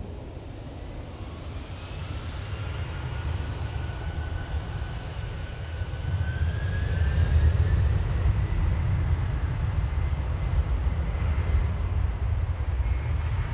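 Twin-engine widebody airliner's turbofan engines throttling up for the takeoff roll: a steady low rumble, with a thin turbine whine rising in pitch and the sound growing louder about halfway through.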